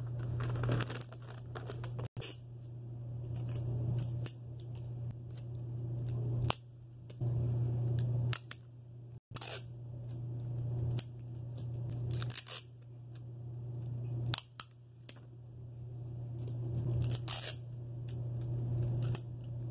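Clear sticky tape being pulled, peeled and handled in the fingers, giving many short crackling clicks, over a steady low hum.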